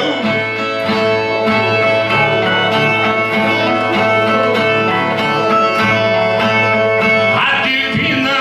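A viola is strummed in a steady instrumental interlude between sung stanzas of a Northeastern Brazilian cantoria de repente.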